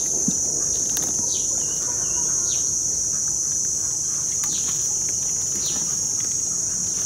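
A steady, high-pitched drone of insects, with a bird giving short falling calls about five times.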